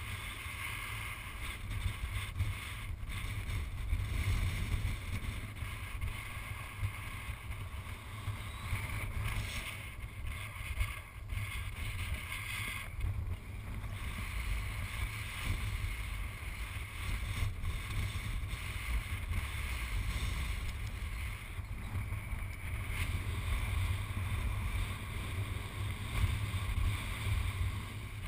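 Strong wind buffeting the camera's microphone: a low, fluctuating rumble with a steady hiss above it.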